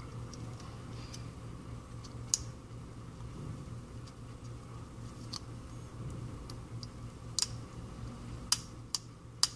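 A few sharp small clicks from small phone parts and repair tools being handled during iPhone 5c reassembly: one a couple of seconds in and a cluster near the end, over a steady low hum.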